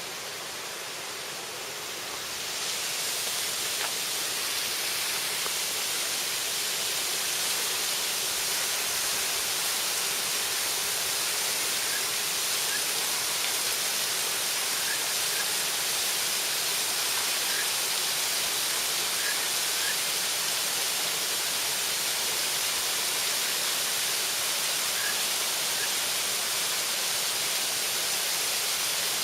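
Waterfall pouring: a dense, steady rushing of falling water. It grows louder about two and a half seconds in, then holds even.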